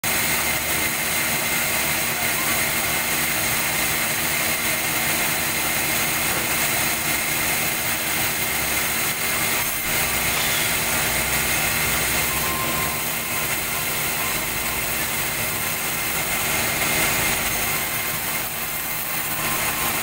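Large vertical band saw running steadily as it rips a durian log lengthwise into boards: a loud, continuous mechanical noise with a steady high tone.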